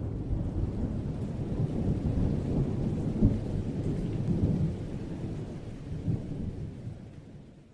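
Thunder rumbling with a hiss like rain, with a sharper jolt about three seconds in, then dying away over the last few seconds.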